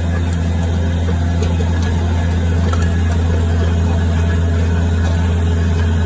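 Skid loader engine running steadily under load, driving an auger attachment that bores a pier hole in dry, sandy soil; a constant low hum throughout.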